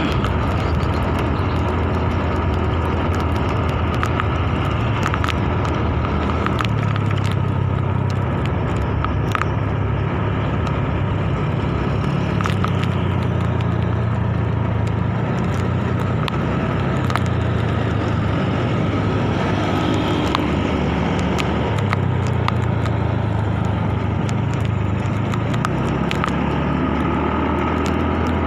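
Riding a motorcycle through city traffic: wind buffeting the phone's microphone over the engine and road noise, with the engine pitch rising and falling a few times.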